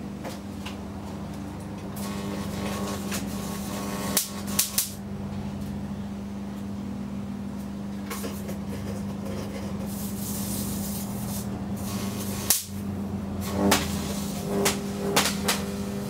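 Unballasted microwave oven transformer humming under load as its high voltage arcs across a plasma TV panel, with sharp crackling snaps of the arcs over the steady hum. The hum steps up about two seconds in, snaps cluster around four seconds and again near the end, and everything cuts out for an instant a little past twelve seconds.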